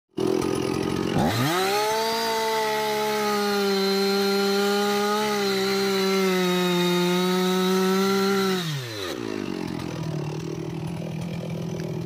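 STIHL chainsaw revving up to full throttle about a second in and cutting into a teak trunk, holding a steady high engine note, then dropping back to a lower idle near the nine-second mark.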